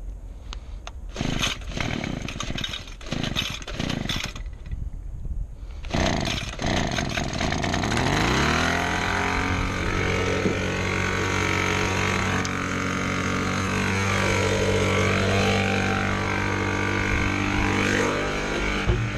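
Small two-stroke engine on a handheld lawn tool being pull-started: several short rope pulls, then it catches about six seconds in, revs up and settles into a steady high-speed run.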